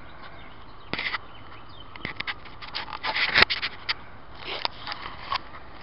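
A DIY foam pipe-insulation wind filter rubbing and scraping against the camera's microphone as it is pulled off: a string of short, scratchy scrapes over a steady faint hiss.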